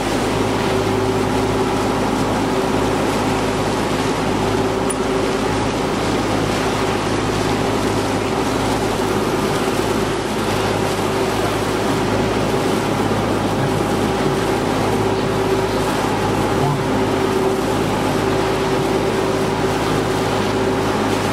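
Tour boat's engines running steadily under way, a low hum with a steady higher tone, over the rush of water in the churning wake.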